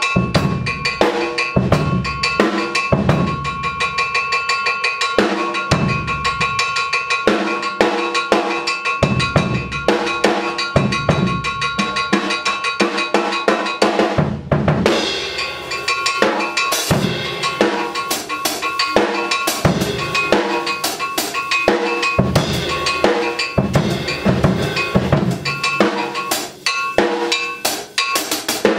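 Drum kit played hard with sticks: deep bass drum, snare and cymbals, mixed with ringing metallic hits on a car tailpipe used as a percussion instrument. The playing thins out briefly about halfway through.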